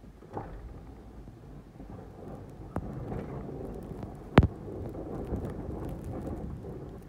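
Truck-mounted V-plow pushing snow: a low, rough rumble of blade and engine that builds about two and a half seconds in. A single sharp bang, the loudest sound, comes a little past halfway.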